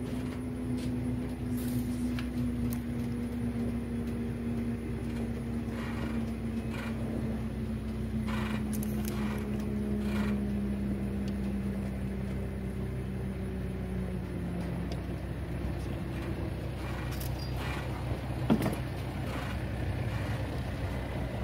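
Distant motorboat engine droning, its pitch slowly falling as it fades out, over a steady low hum. There are a few light clicks and taps, and one short sharp sound near the end.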